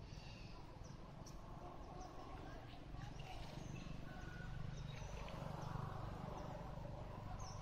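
Faint outdoor ambience: scattered short, high chirps over a steady low rumble that swells in the middle.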